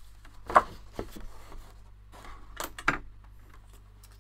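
Kraft cardstock sheets being handled and laid onto a plastic Vaessen Creative Score Easy scoring board. A few short taps and rustles are heard: the loudest about half a second in, a lighter one near one second, and a pair close together near three seconds.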